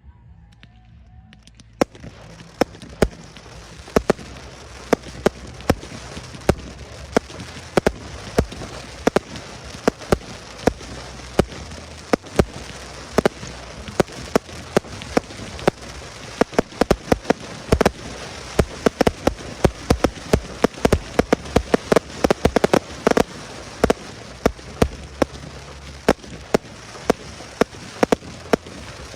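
Fireworks display: after a quiet start, a dense crackling hiss sets in about two seconds in, with many sharp bangs scattered through it and bunching most thickly in the later middle.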